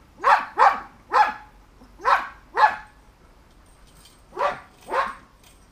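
A dog barking: seven barks, mostly in quick pairs with short pauses between.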